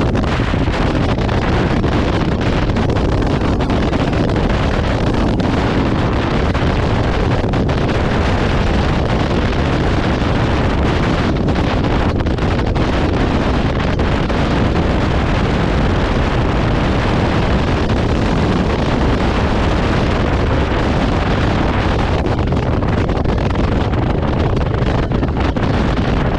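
Steady wind noise on the camera microphone of a Honda motorcycle riding at highway speed, with engine and road noise blended in. The high hiss thins slightly near the end.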